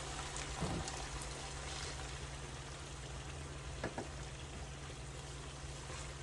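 Meat patties sizzling steadily in a frying pan, with a low hum underneath and two light knocks, one about a second in and one near four seconds.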